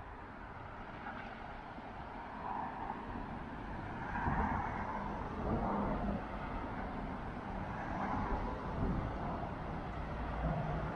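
Road traffic: cars passing on a street, a steady noise of engines and tyres that grows louder over the first four seconds or so and then holds.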